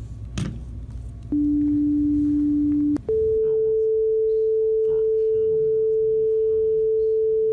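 Two-tone sequential paging alert of the kind used to tone out EMS crews. A low steady tone sounds for about a second and a half, then a higher steady tone holds for about five seconds.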